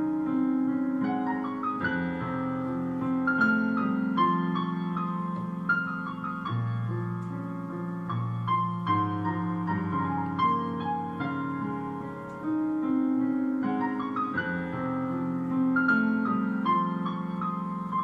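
Background piano music: single melody notes over held low chords.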